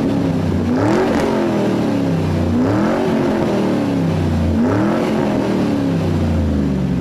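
Car engine being revved again and again: each rev climbs quickly and then sinks back down, three times about two seconds apart.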